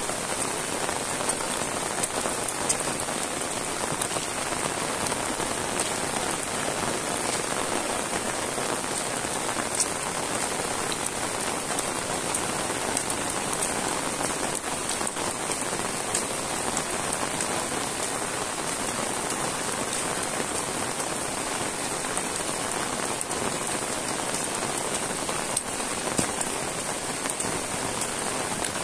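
Heavy rain falling steadily on a wet asphalt road and roadside vegetation: a dense, even hiss with scattered sharper drop hits.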